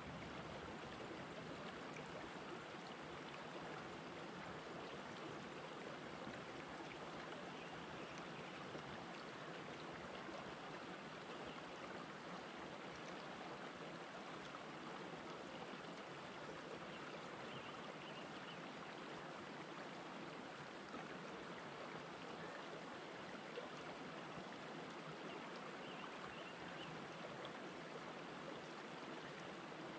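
Shallow rocky stream flowing over and between boulders: a faint, steady rush of water with no change.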